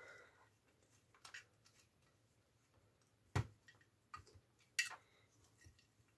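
A few short clicks and knocks of plastic model parts being handled and fitted together by hand, the loudest about three and a half seconds in and another near five seconds; otherwise near quiet.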